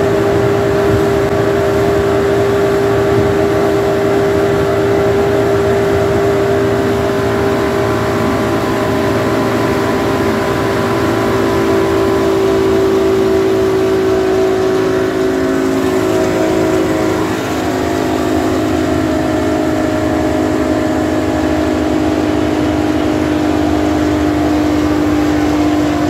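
A boat's three outboard motors running steadily at speed, over the rushing water of the wake. The engine note drops a little about two-thirds of the way through.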